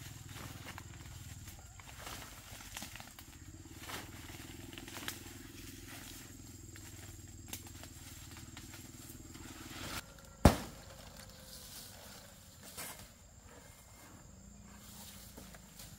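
Machete work in forest undergrowth: leaves and fronds rustling as someone moves through the brush, then one sharp, loud chop about two-thirds of the way through and a lighter one soon after, as palm fronds are cut. A faint low hum underneath stops about ten seconds in.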